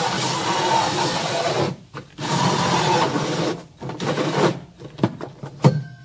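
A 4-inch hole saw on a power drill cutting through the plastic wall of a sump basin. Two long rasping cuts with a short pause between them, then a few short bursts and clicks near the end.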